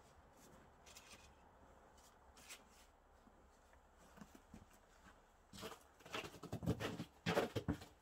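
Footsteps crunching on snow: a few faint steps at first, then loud, close, irregular crunches from about five and a half seconds in.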